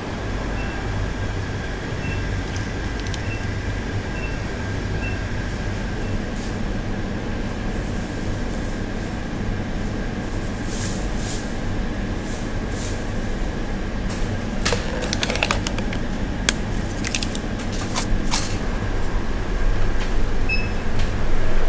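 Steady hum of store machinery such as refrigerators and air conditioning, with a faint high whine over it. From about two-thirds of the way in, a run of sharp crinkles and clicks as a paper instant-oatmeal cup is handled.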